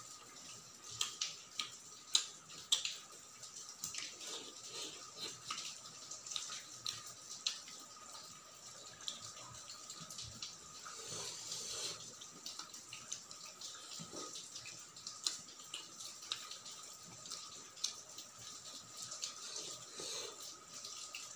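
Close-miked wet chewing and mouth sounds of someone eating rice by hand, with fingers squishing and mixing rice on a steel plate. Many small sharp clicks and smacks come irregularly throughout, over a faint steady high tone.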